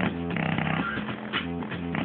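Music with a plucked, guitar-like melody of short repeating notes.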